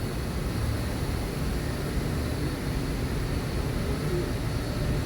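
Steady low rumble with an even hiss over it, the running background noise of a boat ride through a greenhouse; no single sound stands out.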